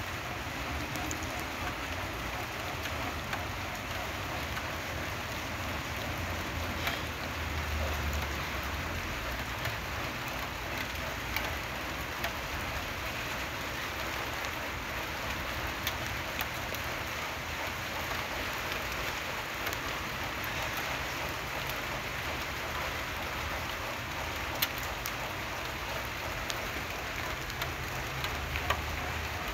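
Steady rain falling, a continuous even hiss with scattered sharper drip ticks.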